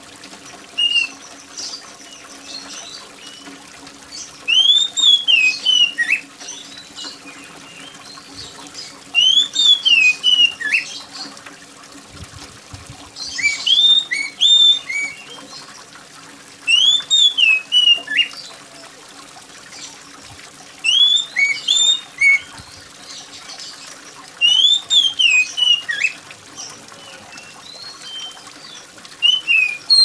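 Oriental magpie-robin singing loud, shrill whistled phrases: about eight bursts of quick rising and falling notes, one every four seconds or so, each lasting one to two seconds. Behind the song runs a steady hiss of water like rain.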